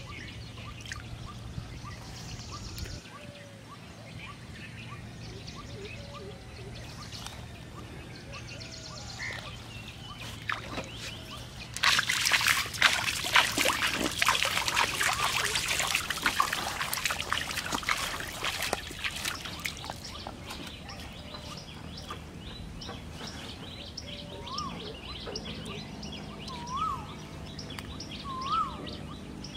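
A shower of small splashes patters loudly on a pond's surface for about seven seconds, starting about twelve seconds in. Small birds chirp throughout, with a repeated rising-falling call near the end.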